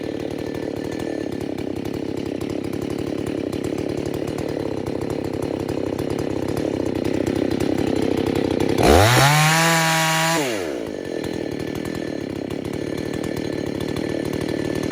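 Husqvarna 281 two-stroke chainsaw with a 24-inch bar cutting hardwood, the engine steady under load. About nine seconds in, its pitch climbs sharply to high revs and holds for about two seconds, then drops back to the loaded note.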